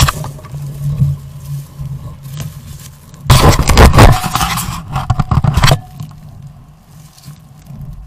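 Trail camera being handled and shifted: loud scraping and rustling right against the camera housing for about two and a half seconds, starting about three seconds in, with lighter knocks and scrapes before it.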